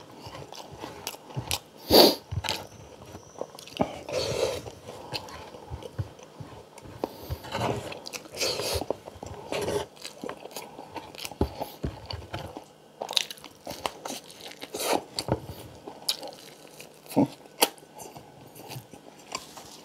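Close-miked eating sounds: chewing and mouth smacks in an irregular run of short clicks, the loudest about two seconds in.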